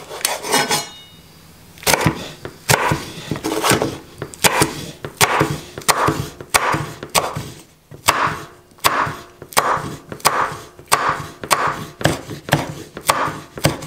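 Chef's knife slicing a red chili on a wooden cutting board: a regular run of sharp knocks of the blade against the board, about three every two seconds, starting about two seconds in.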